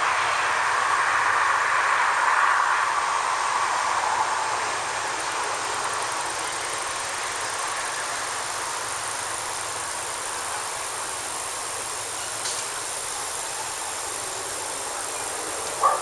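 Road traffic noise: a vehicle passing, loudest in the first few seconds, then easing to a steady distant hum.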